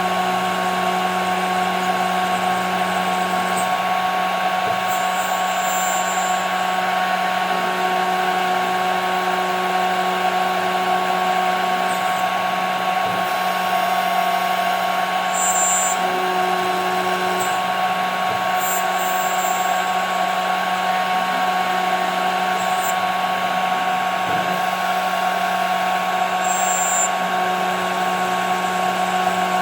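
CNC router spindle running with a steady high whine while it mills 5 mm plexiglass, with a few brief high-pitched hisses from the cut.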